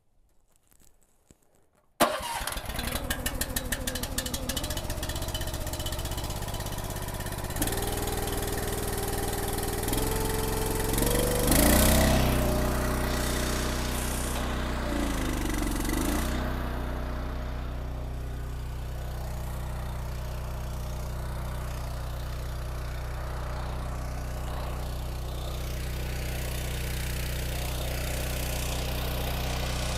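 Log splitter engine starting about two seconds in, speeding up briefly around the middle, then running steadily.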